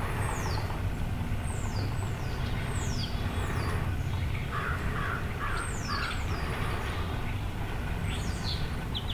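Birds calling in woodland: repeated high whistle notes that fall in pitch, and a run of four quick caws about halfway through, over a steady low rumble.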